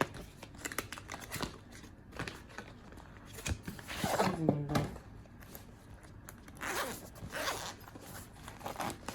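Handling noise from a camera video mic: scattered clicks and taps, with two longer rasping scrapes about four and seven seconds in.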